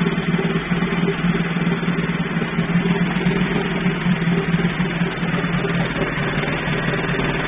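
Veterok 9.9 two-stroke outboard motor idling steadily out of gear, with an even hum.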